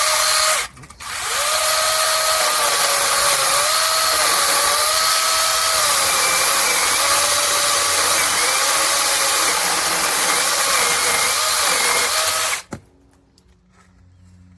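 Battery-powered handheld mini chainsaw's electric motor whining as it runs through a test cut. It starts, stops for a moment, then runs steadily for about twelve seconds, its pitch dipping slightly now and then as it bites into the wood, before cutting off.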